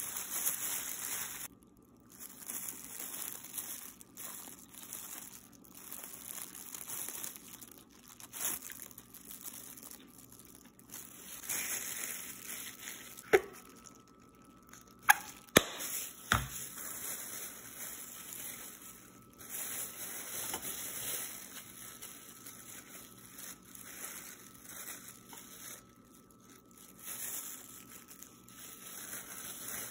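Food-prep handling noises: the rustle and crinkle of disposable plastic gloves as a wrap is handled, coming and going, with a few sharp clicks about halfway through.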